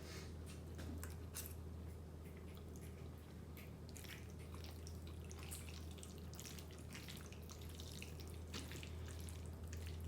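Close-miked wet chewing and mouth clicks of someone eating creamy fettuccine alfredo: a scatter of short, moist smacks and squishes over a steady low hum.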